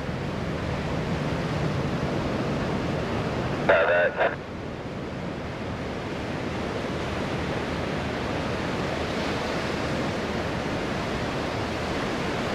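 A steady rushing noise, with a short burst of a voice about four seconds in.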